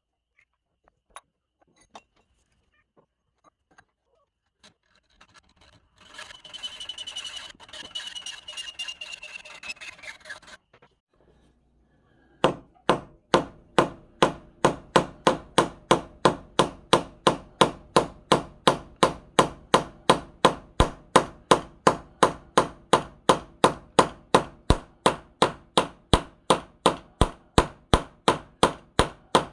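Steady hammer blows on metal, about two a second, starting about twelve seconds in. Before them comes a brief noisy whirr with a slowly falling whine, after a few faint clicks.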